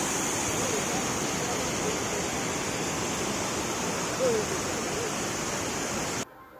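Waterfall rushing, a steady hiss of falling water; it cuts off suddenly near the end.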